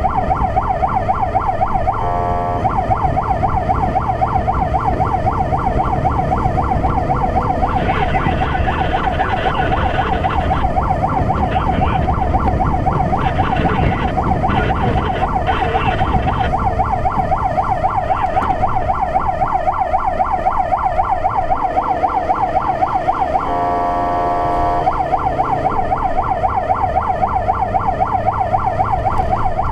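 Fire truck siren sounding a fast rising-and-falling warble over the truck's engine and road noise. The warble is twice broken by a short steady multi-note blast, about two seconds in and again around 24 seconds in.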